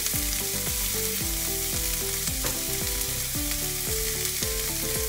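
Diced onions sizzling steadily as they fry in a nonstick pan, with a silicone spatula stirring and pushing them around.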